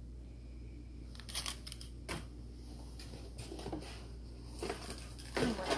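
Plastic clamshell packs of Scentsy wax bars being handled and put down: scattered crinkles and light clicks over a low steady hum, a little busier near the end.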